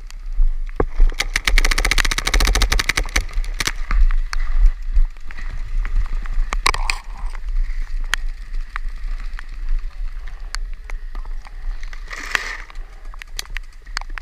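Paintball markers firing: a rapid string of shots about a second in that lasts a couple of seconds, then scattered single shots and short volleys.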